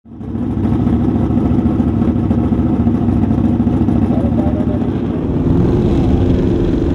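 Hot rod roadster's engine running steadily, fading in over the first half second.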